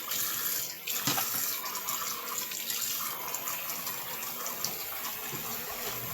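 Hot water running steadily from a faucet into a sink, with a short dip in the flow noise just under a second in.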